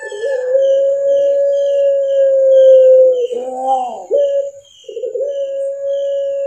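Puter pelung (ringneck dove, Streptopelia risoria) cooing: a long, steady drawn-out note held for about three seconds, then a short bending note. After a brief break, another long held note starts about five seconds in.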